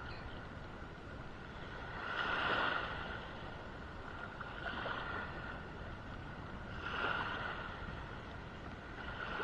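Water sloshing and lapping against a small boat's hull over a steady wash of wind and waves, swelling a few times every two to three seconds.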